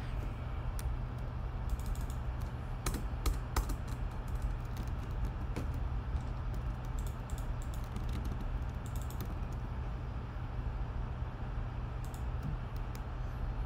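Computer keyboard keys being typed in irregular bursts of clicks, over a steady low hum.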